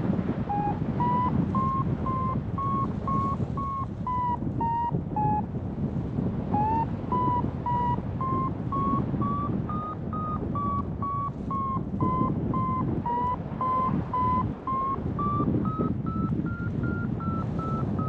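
Paraglider variometer beeping over wind rushing on the microphone. Short high beeps come about two to three a second, their pitch wavering and rising near the end, the vario's signal that the glider is climbing in lift. The beeps stop briefly about five seconds in.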